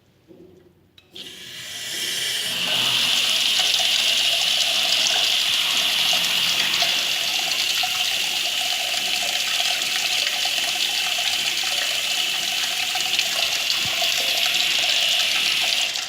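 Toilet flushing: a click about a second in, then rushing water that builds quickly and runs steady and loud for over ten seconds before dropping off sharply near the end.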